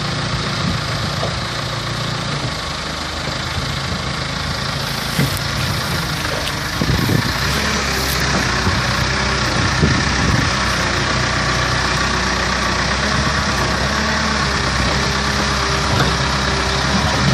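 Tractor engine running steadily, a little louder and deeper from about seven seconds in.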